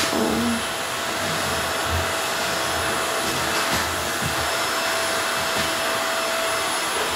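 Steady, loud whooshing noise of a running fan-type machine, with a faint steady whine.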